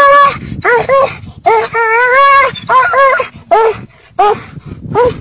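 Dog yelping and whining in distress, a rapid run of about seven high-pitched cries, the longest near the middle wavering in pitch for about a second, while a monitor lizard has hold of it.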